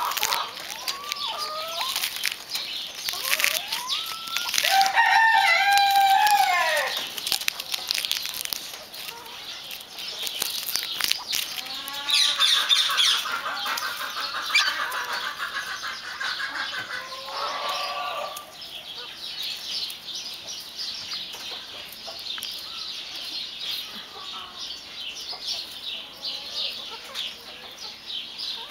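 White Silkie chickens clucking and calling, with one long crow about five seconds in, over constant small clicks and rustles.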